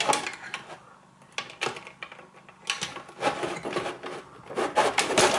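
Clicks and light clattering of wire cutters and wiring against the plastic case of a Triton Enrich electric shower as a cable is cut, with a few sharp snaps early on and busier rattling in the second half.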